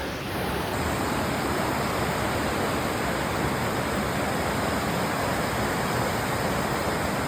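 Dunning Springs waterfall rushing steadily.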